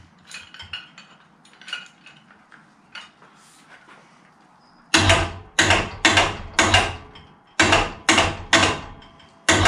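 Powered hoist motor jogged in short bursts, about eight quick starts and stops half a second apart in the second half, taking up the load on the hook. Before that, light clicks and taps of metal parts being handled.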